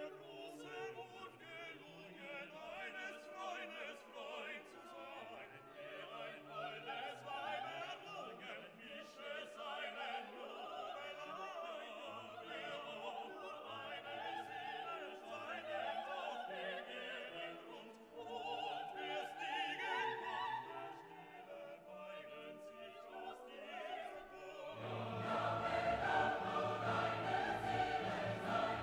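Background classical music with operatic singing over an orchestra, growing louder near the end.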